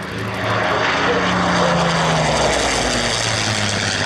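A de Havilland Mosquito's twin Rolls-Royce Merlin V12 engines and propellers in a low flypast. The sound swells about half a second in, and the engine note drops in pitch as the aircraft passes.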